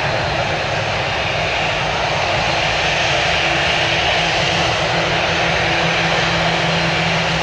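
Jet engines of a taxiing Boeing 737 MAX 8 at low taxi power: a steady rushing whine over a low hum, growing slightly louder about halfway through.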